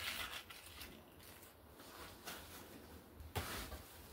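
Faint scraping and rustling of a gloved hand working a small tool along a brick joint, in short strokes, with a sharper knock about three and a half seconds in.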